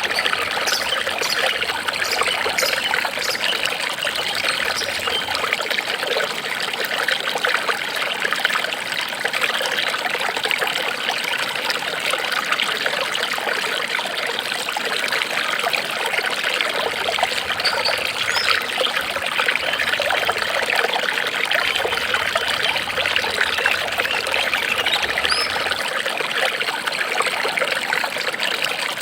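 Water trickling and splashing in a steady, continuous flow, as in a small stream running over stones.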